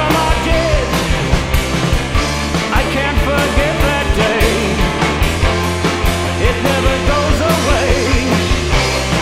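Rock band recording with a steady, driving drum beat, bass and guitars, and a sung vocal line over them.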